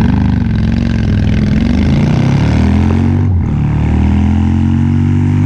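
A vehicle engine running and revving up, its pitch climbing over the first few seconds; after a brief break about three seconds in, it runs on steadily at a higher pitch.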